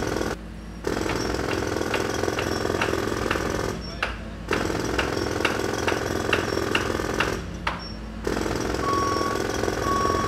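Jackhammer hammering in three stretches separated by short pauses, with a few short beeps about a second apart near the end.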